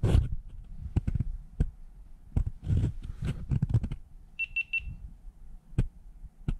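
Scattered handling knocks and clicks, with three quick high electronic beeps at one pitch about four and a half seconds in.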